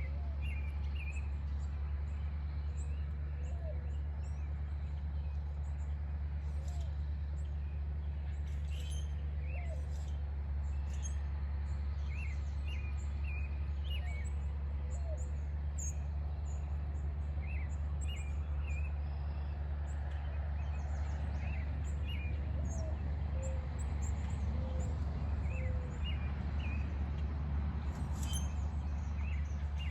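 Several birds chirping and calling in short, scattered notes, over a steady low hum.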